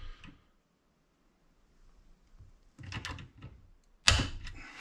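Small torque wrench tightening a scope ring's clamp onto a rifle rail: a short metallic rattle about three seconds in, then a single sharp clunk a second later as the ring is torqued up.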